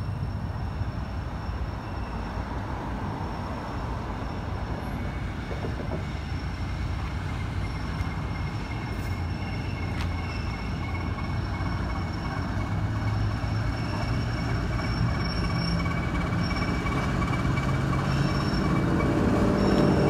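Diesel locomotive approaching slowly, its engine a low steady drone that grows louder over the last several seconds as it draws near.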